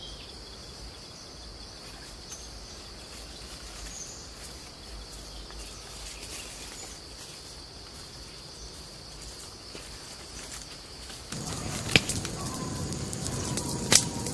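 A steady high insect drone over a quiet rural background. About eleven seconds in, it gives way to an open wood fire of sticks crackling, with two loud pops.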